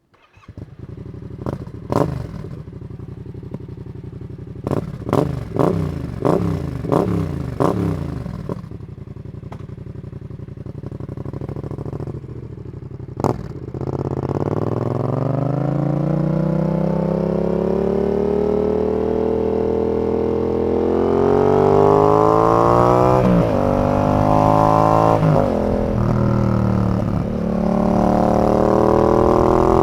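Yamaha XSR 700's 689 cc parallel-twin engine through a Zard full exhaust system. It starts and idles, with a series of quick throttle blips. After a sharp click about thirteen seconds in, it pulls away and accelerates through several gears, the pitch rising and then dropping at each upshift.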